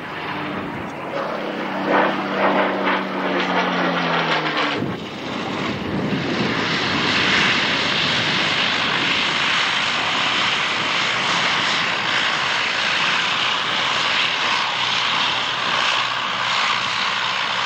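A Spitfire's piston engine passing overhead, its pitch falling as it goes by, cut off about five seconds in. Then a Bristol Blenheim's twin Bristol Mercury radial engines running steadily as it rolls along the ground.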